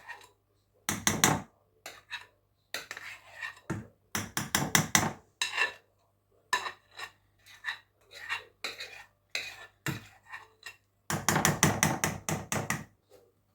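A utensil scraping cake batter out of a mixing bowl into a cake pan, in short irregular strokes and knocks against the bowl. Near the end comes a longer run of fast scraping.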